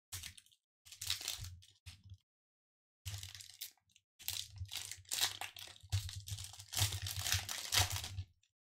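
Foil wrapper of a Pokémon TCG Vivid Voltage booster pack crinkling and tearing as it is ripped open by hand, in several short bursts and then a longer stretch from about four seconds in to near the end.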